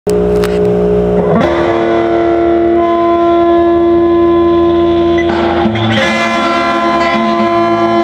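Electric guitar playing long held notes, the notes changing about a second in and again about five seconds in.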